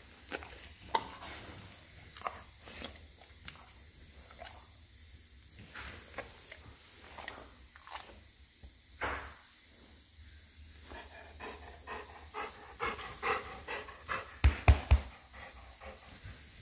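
Golden retriever panting at close range, with scattered small clicks and snuffles. Near the end come three loud, low thumps in quick succession.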